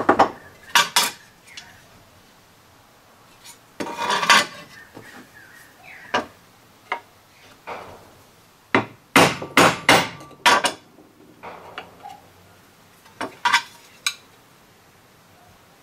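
Hammer striking a screwdriver to drive an old camshaft oil seal out of its aluminium retainer: sharp metallic taps in irregular groups, with pauses between as the screwdriver is worked around the seal a bit at a time.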